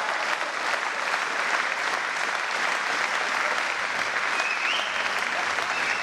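Spectators applauding steadily, clapping in a match-winning point.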